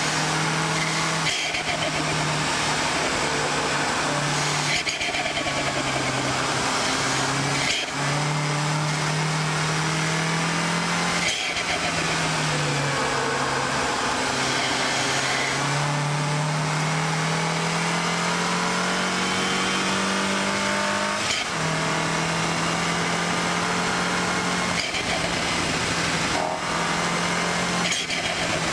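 MINI Cooper S's turbocharged four-cylinder engine pulling hard on a race track. Its pitch climbs steadily through each gear and drops abruptly at each gear change, several times, over steady road and wind noise.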